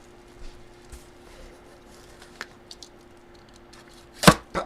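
Light clicks and handling of a sealed trading-card box, then two sharp cracks close together near the end as the box is popped open.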